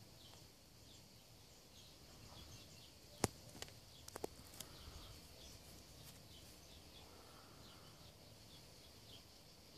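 Quiet outdoor ambience with small birds chirping faintly and irregularly in the background. A single sharp click about three seconds in, then a few lighter clicks a second later.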